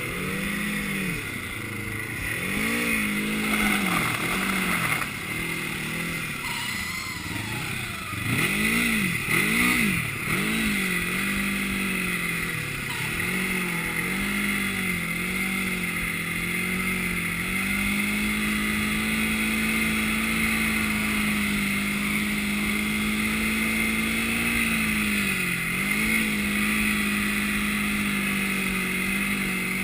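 Snowmobile engine running under changing throttle: its pitch rises and falls every second or so for the first half, then holds steady for several seconds, with a short dip near the end.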